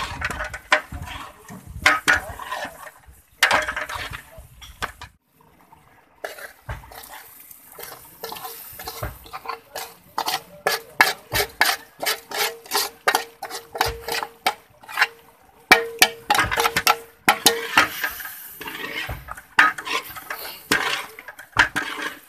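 A long metal ladle stirring chunks of beef and tomato in a large aluminium cooking pot, clanking and scraping against the pot in quick repeated strikes, with a short pause about five seconds in.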